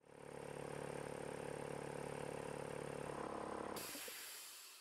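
A steady mechanical hum with a fast, even flutter fades in, then gives way to a hiss a little under four seconds in, which fades out near the end.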